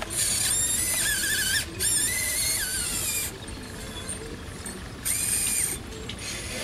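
Radio-controlled model excavator's electric motors and gearing whining in three bursts, the first two back to back over the first three seconds and a short one about five seconds in, the pitch wavering and gliding up and down.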